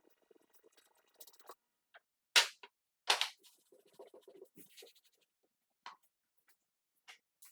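Two sharp knocks about two and a half seconds in, under a second apart, followed by lighter clicks and scraping.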